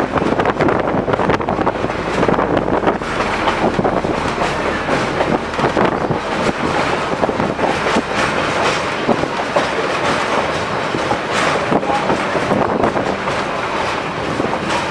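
Heritage passenger train rolling along, heard from on board: a steady rumble and rattle of the car with the wheels clicking over the rail joints.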